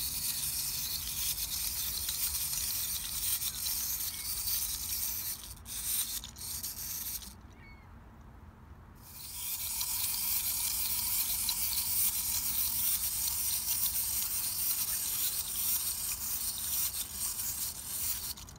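Clockwork motor of a 1983 Tomy Doozer wind-up toy whirring as the plastic figure walks, a steady buzzing rattle. It falters about six seconds in, cuts out about seven seconds in, and starts again about two seconds later.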